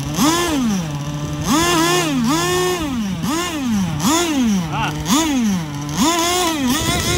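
Two-stroke gas engine of an RC racing boat, revved in short throttle blips: the pitch jumps up and falls back to a steady idle over and over, about once or twice a second.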